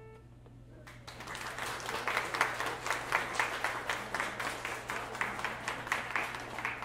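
The last piano note fades out, then a small audience claps from about a second in, the applause thinning near the end.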